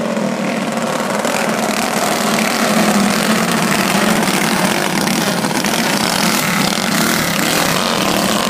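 Several racing go-kart engines running steadily as the karts lap a dirt oval.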